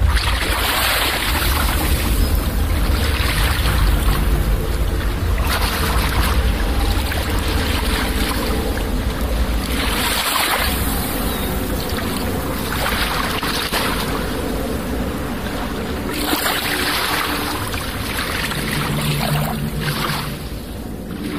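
Instrumental electronic music passage: swells of rushing, wave-like noise rise and fall every two to three seconds over a steady deep bass. It fades somewhat near the end.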